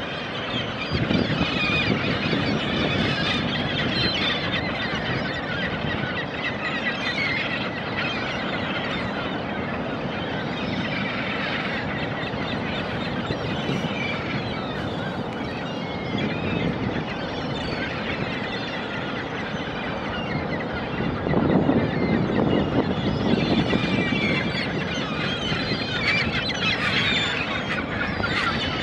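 Ocean surf washing on a beach, with a flock of seabirds calling almost constantly over it. A louder wave breaks about two-thirds of the way through.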